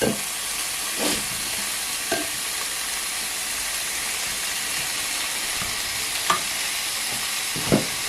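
Food sizzling steadily in a hot cooking pot, with a few knocks and clatters against the pot.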